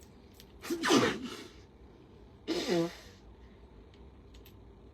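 A man sneezes once about a second in, then gives a short vocal sound that falls in pitch.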